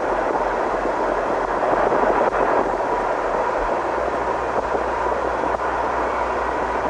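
Freight train rolling past close by: a steady rush of tank cars on the rails with a few faint clicks, and a deeper rumble coming in about halfway through as a locomotive nears.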